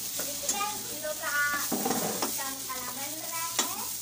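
Ground spice masala sizzling as it fries in oil in a metal kadai, while a spatula stirs and scrapes it around the pan, with a few sharp clicks of the spatula against the metal.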